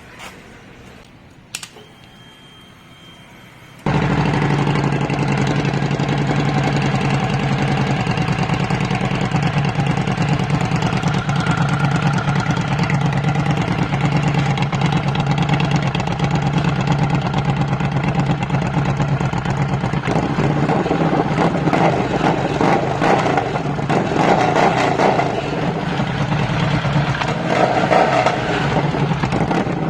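Harley-Davidson Street 750's V-twin engine with an aftermarket Vance & Hines exhaust: a click, then about four seconds in the engine starts and settles into a loud, steady idle. In the last third it is blipped several times, the revs rising and falling.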